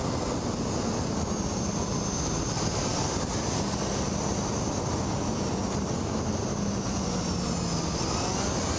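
Motorcycle riding at speed, recorded by an onboard camera: a steady rush of wind noise over a faint low engine hum.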